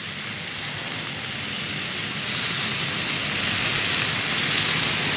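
Sausages sizzling on the grates of a grill turned up to high heat: a steady hiss that grows louder about two seconds in.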